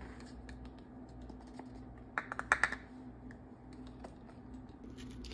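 Light plastic clicks and taps of a plastic measuring cup against a cornstarch canister as a quarter cup of cornstarch is scooped out and tipped into a saucepan. A quick run of several clicks a little past two seconds in is the loudest part.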